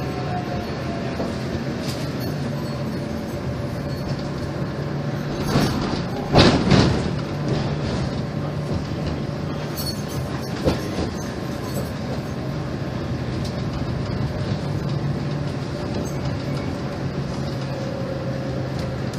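Tatra T3 tram running, heard from inside the passenger car: a steady low hum with rattling, a burst of loud clattering about six seconds in, and a single sharper knock near eleven seconds.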